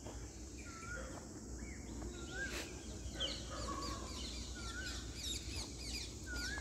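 Birds calling: one repeats a short, looping whistled note every second or two, over a steady chatter of higher chirps from other birds.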